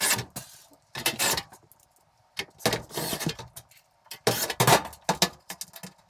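Several short bursts of light clattering and rattling as small metal screws and the control panel's back cover are handled, with brief quiet gaps between them.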